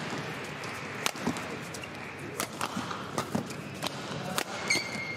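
Badminton rally: sharp racket hits on the shuttlecock, about five of them spaced half a second to a second apart, with a brief shoe squeak on the court near the end, over a hall background.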